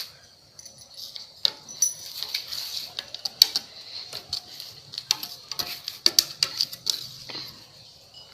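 Irregular sharp clicks and light knocks, coming several a second at times, over a faint steady high hiss.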